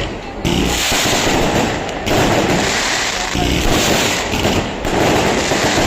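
Fireworks going off in quick succession: a dense run of crackles and bangs that surges several times.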